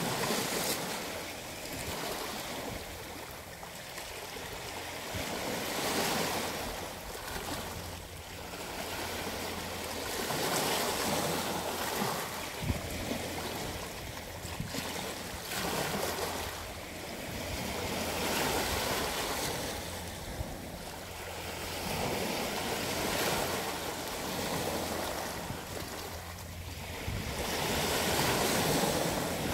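Small ocean waves breaking and washing up over a cobble beach. The surf swells and falls back every few seconds.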